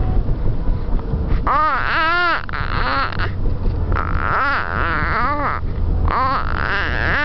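A baby in a car seat vocalizing in a string of high, rising-and-falling squeals and coos, about six of them from a second and a half in. Under them runs the steady low rumble of the moving car.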